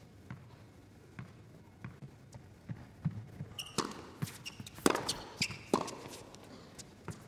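Tennis rally on an indoor hard court: sharp knocks of racket strikes and ball bounces. They are faint and spaced out at first, then louder and quicker from about three and a half seconds in, with short squeaks of shoes on the court.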